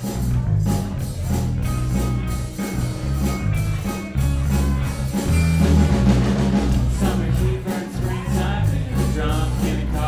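Live rocksteady band playing a song, with a heavy repeating bass line under a steady drum beat and held melodic notes over the top.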